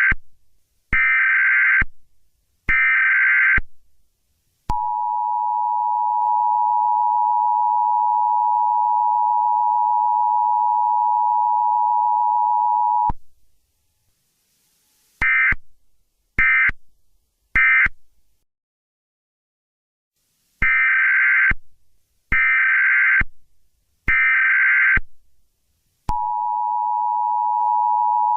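Emergency Alert System tones: three bursts of warbling SAME digital header data, then the steady two-tone attention signal for about eight seconds. Three short end-of-message bursts follow, then three more header bursts, and the attention signal starts again near the end.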